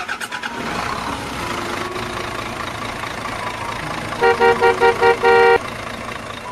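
A vehicle horn honks about six quick beeps a little over four seconds in, the last one held longer, over a steady running noise.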